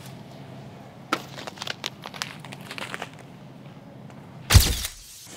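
Plastic bag of rice crinkling as it is handled, in irregular crackles, then a single loud thump near the end.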